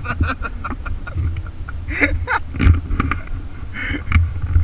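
Wind rumbling and buffeting on the camera microphone, with brief muffled voices of people standing nearby.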